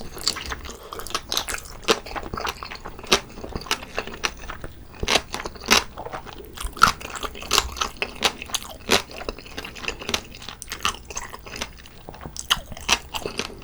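Close-miked biting and chewing of a whole braised pig's trotter (jokbal), a dense irregular run of sharp clicks and crunches.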